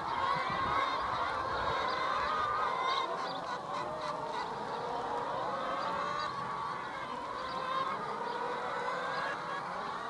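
A flock of brown laying hens calling together, many drawn-out, wavering calls overlapping into a steady chorus.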